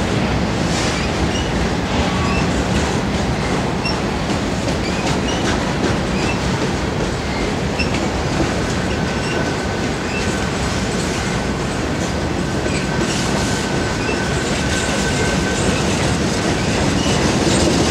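Freight cars of a Union Pacific train rolling past on a curve: a steady rumble and rattle of steel wheels on rail with clicking over the rail joints. A thin wheel squeal is held for several seconds midway.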